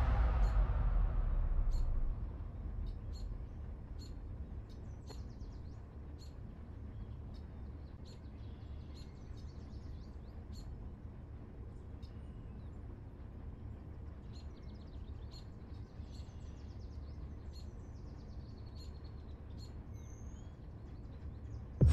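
Birds chirping and calling, with short scattered notes throughout, over a low steady outdoor rumble. A deep boom that hits just before fades out over the first couple of seconds.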